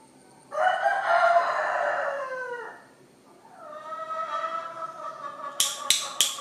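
A rooster crowing once, loud, starting about half a second in and falling in pitch at its end. Near the end an even run of sharp clicks begins, about four a second.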